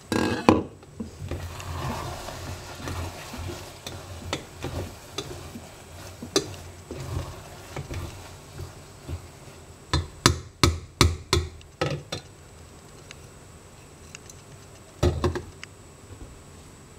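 Wooden spoon stirring chicken and rice in a stainless steel pot, a soft scraping for several seconds. Then a quick run of sharp knocks on the pot, and about fifteen seconds in a clatter as the glass lid is set back on the pot.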